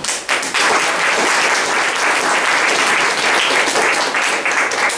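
Audience applauding, many hands clapping steadily; it starts right at the beginning.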